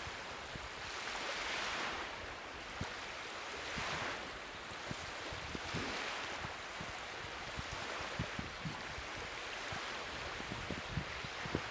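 Wind over choppy open water, with waves lapping: an even rushing noise that swells and eases every couple of seconds. A few faint low thumps come near the end.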